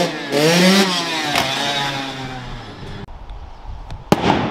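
Enduro dirt bike engines revving hard as bikes pass, the pitch rising and then falling over the first second and a half. After that comes fainter engine noise, with one sharp knock about four seconds in.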